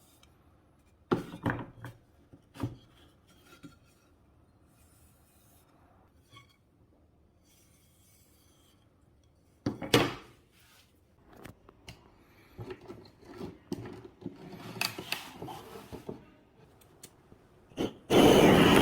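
Wooden workpieces being handled on a bench: a few sharp knocks, one loud knock, then a run of scraping and light clicks. Near the end a loud steady rushing noise starts suddenly.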